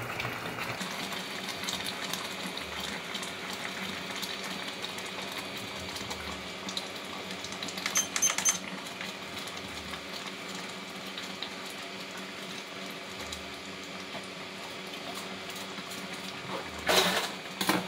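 Rice simmering in a pot on a portable induction cooktop: the cooktop hums steadily under bubbling. A short high beep comes as its control button is pressed about eight seconds in, and a sharp clatter comes near the end.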